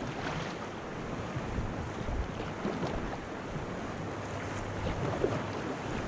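Kayak paddle strokes splashing in fast river water, with wind buffeting the microphone throughout.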